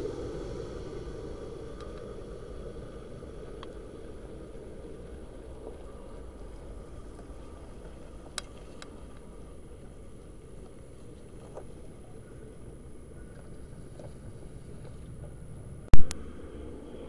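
Airbus A319's IAE V2500 jet engines fading away after the airliner passes overhead on landing approach, dying down to a steady low, distant rumble. A single very loud, sharp pop near the end.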